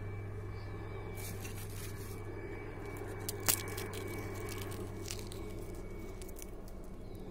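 Dry eggshells crushed between the fingers and dropped onto potting soil: scattered crackles and clicks, with one sharp crack about three and a half seconds in, over a steady low hum.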